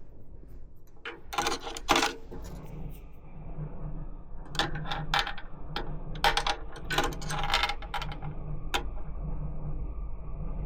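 Small metal screws and parts clinking and rattling as they are handled, in two jingling clusters with a last single click, over a faint steady hum.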